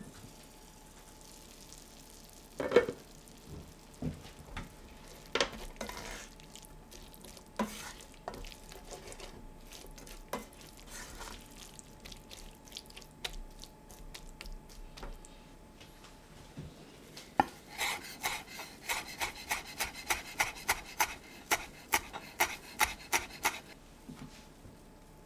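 A stainless steel sauté pan's lid comes off with one loud clank about three seconds in. A silicone spatula then stirs beef strips, peppers and onions in the simmering sauce, with scattered scrapes and knocks against the pan. From about 17 to 23 seconds there is a quick run of taps, about three a second.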